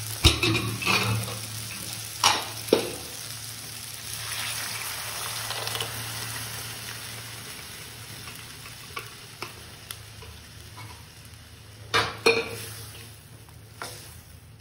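Vegetables sizzling in a frying pan as cooked arhar dal goes in, the sizzle dying away as the liquid covers them. A few sharp knocks of a utensil against the pan, and near the end a silicone spatula stirs the sambar.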